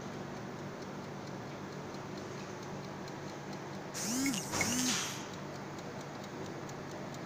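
A mechanical wind-up kitchen timer ticking fast and steadily over a steady low hum. About four seconds in a louder, brief squeaky sound rises and falls twice in pitch.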